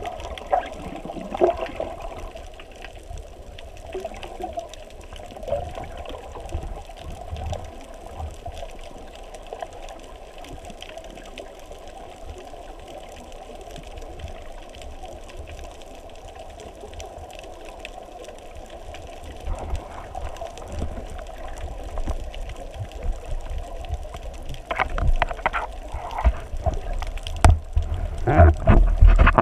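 Muffled underwater water noise picked up by a GoPro camera in its waterproof housing while snorkelling, a steady sloshing and bubbling. It grows louder and choppier in the last few seconds as the camera nears the surface.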